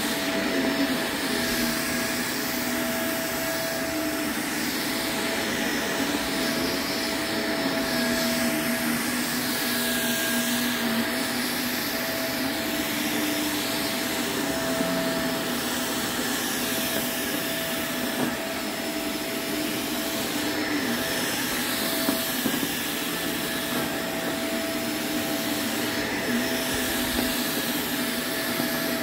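Shark upright vacuum cleaner running steadily as it is pushed and pulled across a thick shag rug. The motor's hum holds a steady tone, while the whoosh of its airflow rises and falls with each stroke.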